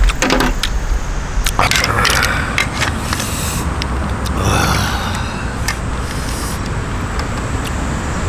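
Steady road-traffic rumble, with repeated short clinks of metal spoons against the pot and mussel shells as the soup is eaten.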